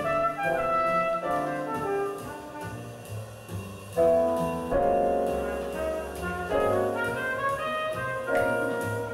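Jazz with brass horns playing a melody over a low bass line, swelling into a loud horn entry about four seconds in.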